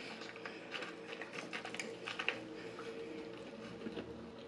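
Soft, irregular clicks and crackles of close-miked eating: chewing and fingers picking through French fries in a paper carton. A faint steady hum runs underneath.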